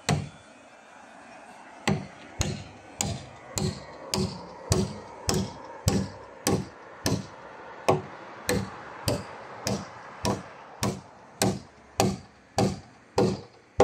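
Hammer blows on wood, evenly paced at a little under two a second, about twenty in a row after a pause near the start: carpentry nailing into roof timber.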